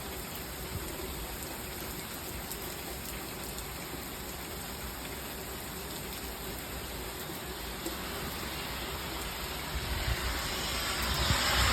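Heavy rain pouring down in a steady hiss, growing louder over the last two seconds or so.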